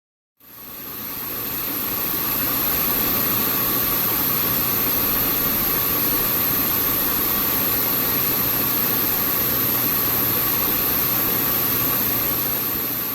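A computer's hard disk drive running with an abnormal noise: a steady whirring hiss with a high whine and a low hum, fading in at the start. The owner links the noise to the PC freezing often.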